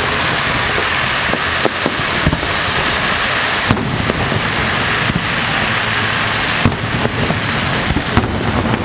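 Fireworks display: a dense, continuous crackle of bursting crackling stars, with several sharp bangs of shells going off, the clearest a little before halfway, about three quarters in and near the end.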